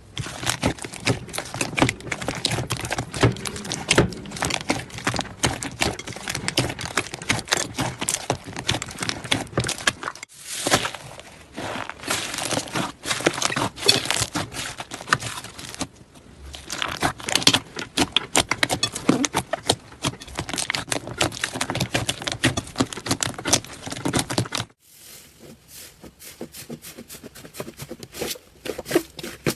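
Slime being squished and pressed, a dense run of sticky crackles and pops. There are brief breaks about ten and sixteen seconds in, and the sound drops to a quieter, sparser crackling near the end.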